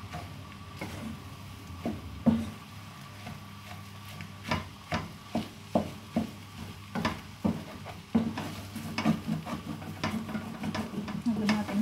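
Wooden spoon stirring food in a frying pan, knocking and scraping against the pan at an irregular pace. The knocks are sparse at first and come more often from about halfway through.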